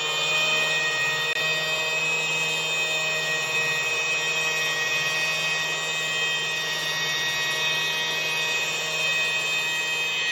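Power buffer running steadily at speed, polishing car paint with fine cut cleaner compound: a steady whine with several high tones.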